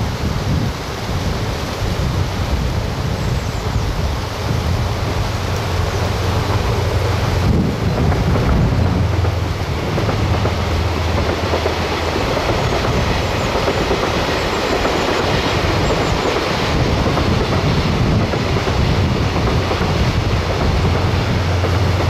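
Diesel-hauled container freight train passing: a steady low engine drone with the rumble of the wagons rolling over the rails, growing louder several seconds in and holding until the train has gone by.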